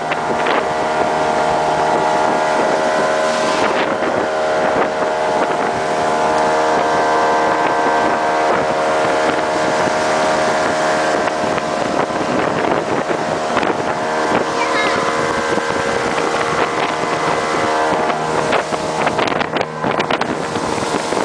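Speedboat engine running at a steady pitch, with rushing wind and water noise over the top.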